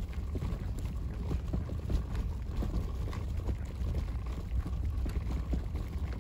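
Stroller wheels rolling over coarse asphalt: a steady low rumble dotted with many small crackles, with wind on the microphone.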